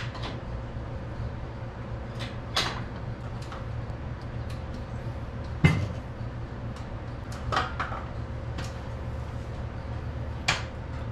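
Scattered metal clunks and knocks from hand work on a Massey Ferguson 85 tractor's rear housing, about five in all, the heaviest about halfway through, over a steady low hum.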